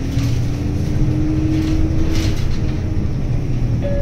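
City bus engine running with a steady low rumble, heard from inside the bus as it creeps forward in traffic; its hum edges up slightly in pitch in the first couple of seconds.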